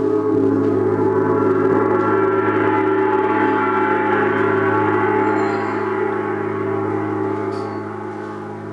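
Large gong ringing after strokes of a soft-headed mallet, a dense shimmering wash of many overtones that holds strong and then slowly dies away over the last few seconds.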